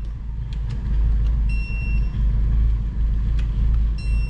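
A digital torque wrench beeps as each cylinder-head bolt reaches its set torque (10 Nm, first pass): one short beep about one and a half seconds in, and another starting near the end. Underneath is a steady low rumble, with a few light clicks.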